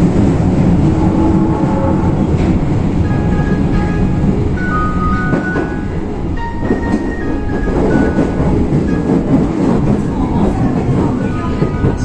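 Osaka Metro subway train running at speed, heard from inside the car: a steady rumble with wheel clatter. Short chime notes sound over the noise at intervals, typical of the terminal-arrival chime.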